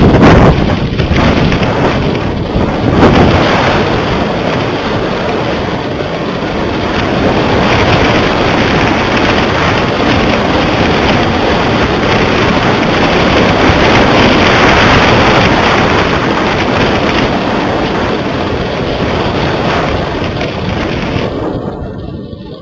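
Wind buffeting the microphone of a small camera hanging from a kite in flight: a loud, steady rushing noise that swells and eases in gusts and drops away briefly near the end.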